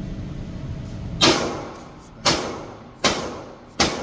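AR-15 rifle fired four times at an indoor range, shots about a second apart, each ringing off in the room's echo. A steady low hum sits under the first second before the first shot.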